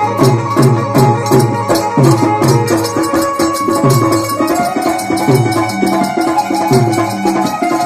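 Live Gujarati folk music for a Ramamandal performance: hand drums beating a steady rhythm, about two strokes a second, with quick high percussion ticking between the strokes and held instrumental notes running underneath.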